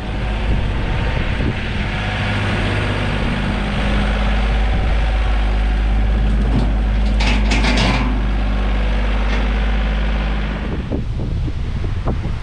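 A motor vehicle's engine running steadily, with a short hiss about seven seconds in; the engine sound stops about two seconds before the end.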